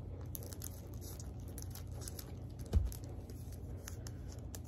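Faint scattered clicks and rustles of a Pokémon booster pack and cards being handled, over a low steady hum, with one low thump a little before the three-second mark.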